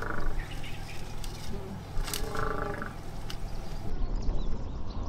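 Bull African elephant making strange drawn-out pitched noises, one at the start and another about two seconds in, which the filmer takes to be probably digestive. After about four seconds these give way to birds chirping over a low rumble.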